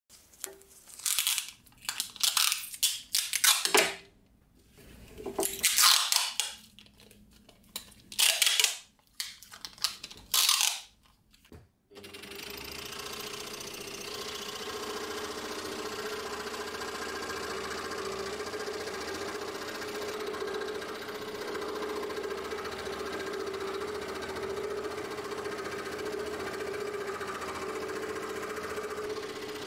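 For about the first twelve seconds, irregular bursts of handling noise with short gaps. Then a scroll saw starts and runs steadily with its blade cutting into a block of padauk.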